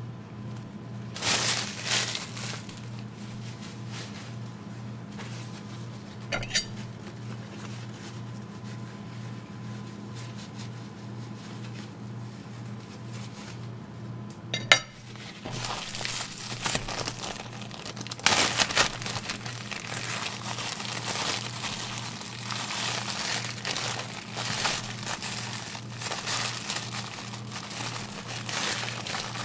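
A clear plastic bread bag crinkling and rustling as it is handled, with a few sharp clinks of a china plate; the crinkling becomes near-continuous from about halfway on, just after the sharpest click. A steady low hum runs underneath.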